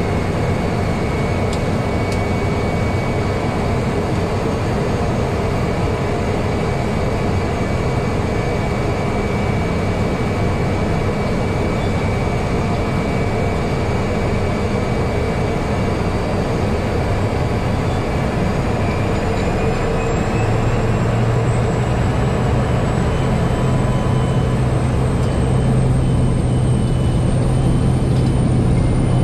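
Cessna 208 Grand Caravan's PT6A turboprop engine and propeller running at high power during the takeoff, heard inside the cockpit as a steady, loud drone with a high whine. About two-thirds of the way through, the whine starts rising in pitch and a lower drone steps up and grows louder.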